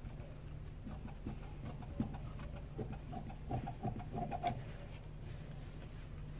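Scissors snipping through fabric and fused interfacing, trimming the edges: a run of irregular short snips and clicks, over a steady low hum.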